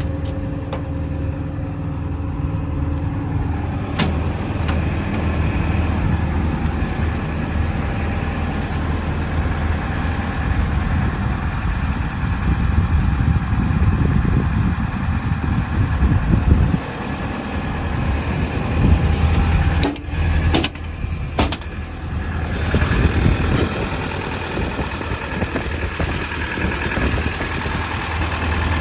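Hitachi Zaxis 210 LC-6 excavator's diesel engine running steadily at idle, with a few sharp knocks about twenty seconds in.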